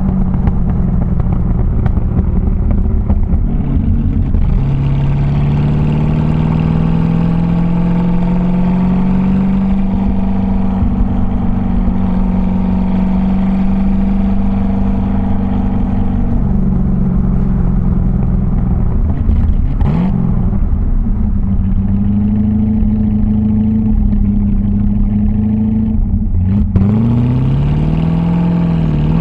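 1966 TVR Grantura's 3.5-litre V8 exhaust under way at speed: the engine note climbs, holds a steady pitch for a long stretch, then drops briefly twice in the second half, as at a lift-off or gear change, before rising again.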